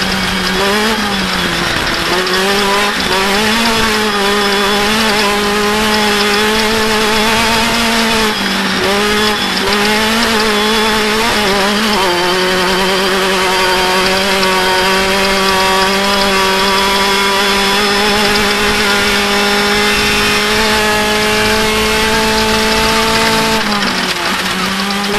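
Off-road race vehicle's engine running hard at high, steady revs, its pitch dipping briefly a few times and then climbing back.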